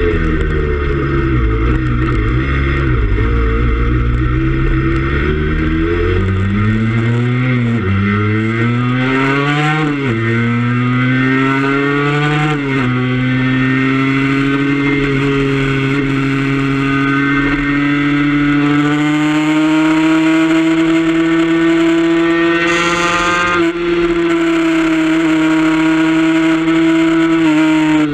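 Race motorcycle engine heard from a camera mounted on the bike, most likely a Suzuki RG150. Its revs climb and drop back with three quick upshifts in the first half. It then holds high revs flat out down the straight and eases off right at the end.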